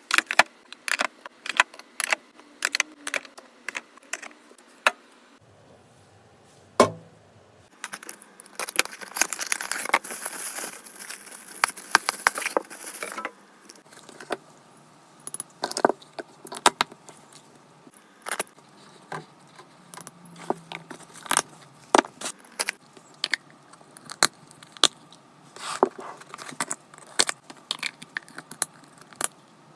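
Small hard items clicking, clinking and tapping as they are handled and set down, with a few seconds of rustling about a third of the way in.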